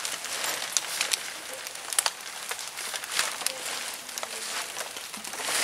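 Nylon tent fabric rustling and crinkling as it is lifted and pulled into place, with irregular sharp crackles throughout.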